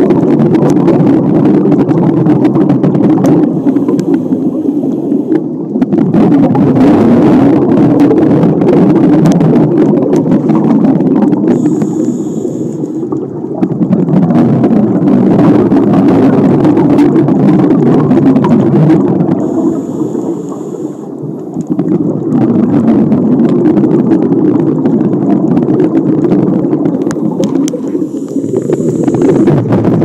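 Underwater scuba breathing heard through the camera: long stretches of low rumbling exhaust bubbles from the regulator, broken about every eight seconds by a short quieter inhalation with a faint high tone.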